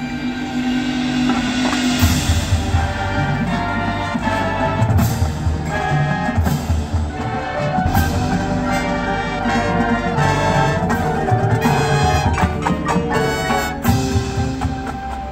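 Marching band playing its field show: brass ensemble over drums and percussion. A held brass chord opens, and the drums and full band come in about two seconds in.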